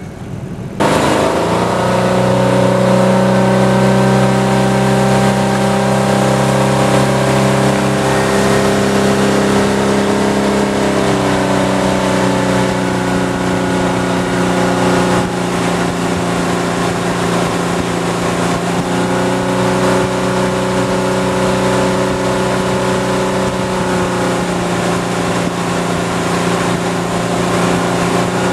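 Inboard tow boat's engine running at wakeboarding speed, pulling a rider, over a steady rushing hiss of the wake. It comes in suddenly about a second in and holds a steady drone, shifting slightly in pitch a few times.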